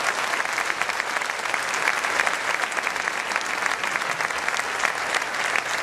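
A large seated audience applauding, many hands clapping in a dense, steady patter.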